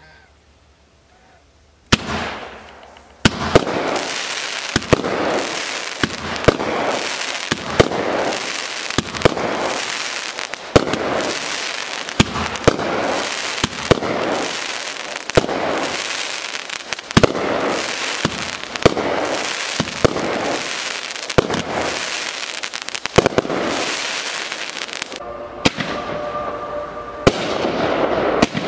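A 200-gram, 16-shot consumer fireworks cake firing: a launch thump about two seconds in, then a steady run of shots and aerial bursts, each followed by a crackle. Near the end, after a brief pause, another multi-shot cake starts firing.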